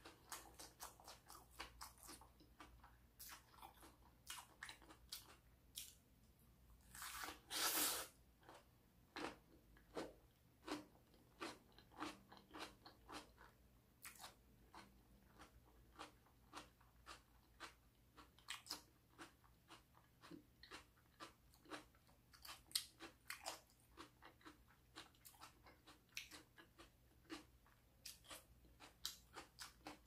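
Chewing crisp raw bell pepper: a steady run of small, sharp crunches, with two louder crunching bites about seven and eight seconds in.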